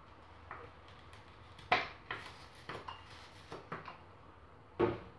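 Scattered knocks and clatters of kitchen items being handled, about eight in all, the loudest a little under two seconds in and another strong one near the end.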